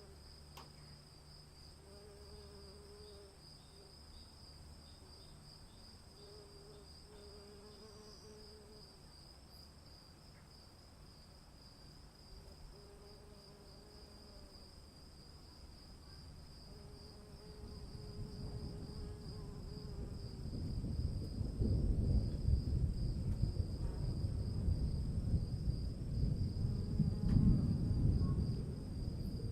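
Crickets trilling steadily with a faint low call repeating every couple of seconds. From about halfway, a long low rumble of thunder builds and rolls on, loudest near the end.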